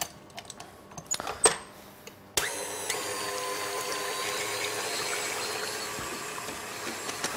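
A few light metal clicks as the wire whisk is fitted to a KitchenAid Heavy Duty stand mixer. About two and a half seconds in, the mixer's motor starts suddenly and runs steadily at a slow speed, its whisk beating whipping cream in the steel bowl.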